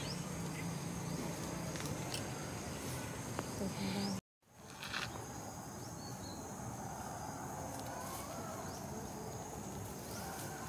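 Outdoor ambience of steady insect drone with faint high thin tones, and scattered small clicks and rustles. The sound cuts out completely for a moment about four seconds in, then comes back.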